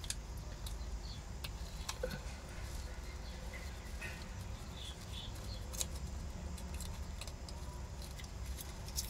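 Faint handling noises as the baby bird is turned over: scattered light clicks and soft rustles.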